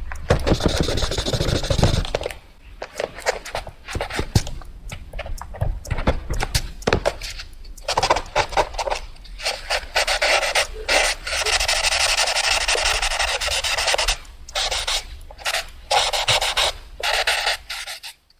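Pencil scribbling fast on paper: rapid scratchy strokes, mostly short and broken, with one longer unbroken stretch of scribbling in the middle, stopping abruptly near the end.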